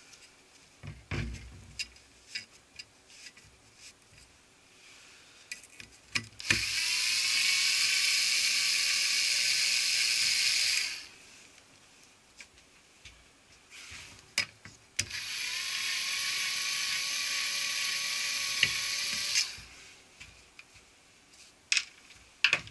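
Electric screwdriver running twice for about four seconds each, unscrewing the screws that hold the top part of a copier developer unit, with clicks and knocks of handling in between.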